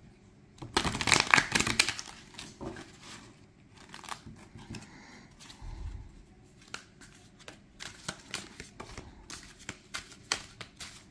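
A thick, glossy 110-card tarot deck being riffle-shuffled by hand: a fast flurry of card flutter about a second in, then softer card handling with a low thump near the middle, and a run of quick card clicks through the second half as the deck is shuffled again.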